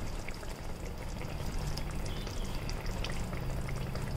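Spinach gravy simmering in a pan at a gentle boil: a steady low bubbling with many small pops.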